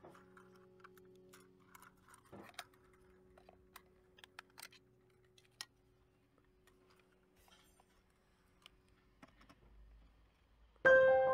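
Faint small clicks and taps of a folding plastic drone's arms and propellers being unfolded and handled, over faint steady background tones. Near the end, loud piano-like music starts.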